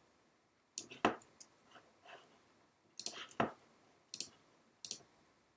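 Irregular sharp clicks from a computer mouse and keyboard, about seven of them, some coming in quick pairs.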